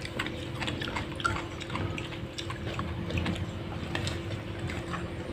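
Close-up eating sounds: wet chewing and small lip-smacking clicks, with fingers picking at food on a ceramic plate, over a faint steady hum.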